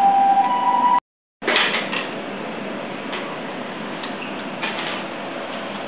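Light clinks and clatter of dishes and utensils over a room's background murmur, a few separate clicks. A steady high tone sounds in the first second, then breaks off into a moment of total silence.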